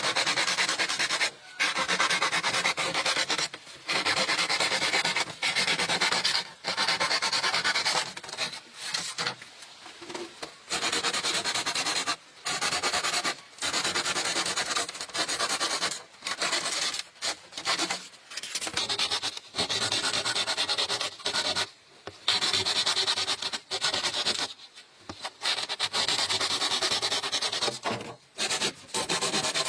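Bamboo being scraped in repeated rasping strokes, each a second or two long, with brief pauses between.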